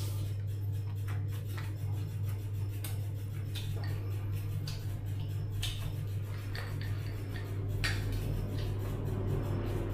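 Scattered light clinks and ticks of dishes and utensils being handled, a few sharper ones standing out, over a steady low hum.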